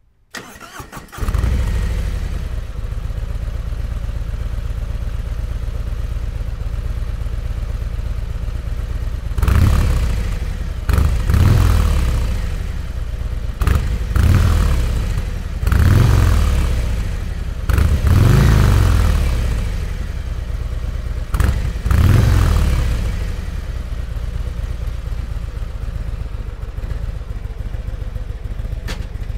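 Harley-Davidson Road King's Milwaukee-Eight 107 V-twin breathing through Miller Cleveland slip-on mufflers: started about a second in, it settles to a steady idle, then is revved in several short throttle blips before dropping back to idle.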